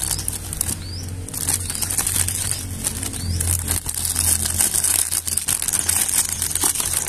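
Thin clear plastic bag crinkling and rustling in quick, dense crackles as hands handle it and pull a plastic toy out of it.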